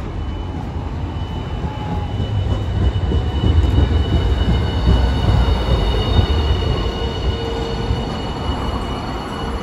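Hiroshima Electric Railway Green Mover LEX low-floor tram pulling into the stop: the rumble of its wheels on the rails grows as it draws near and passes, loudest midway, then eases as it slows. A thin steady high whine runs over it.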